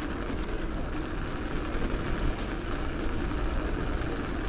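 Steady wind rumble on the microphone of a camera riding along on a bicycle, with no distinct events.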